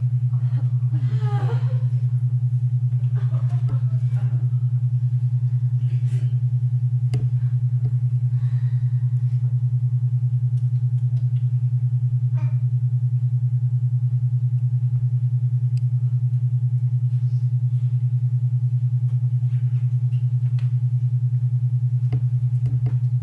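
A loud, low droning tone pulsing quickly and evenly, held steady throughout. A faint voice comes in during the first few seconds, and a few soft knocks sound later.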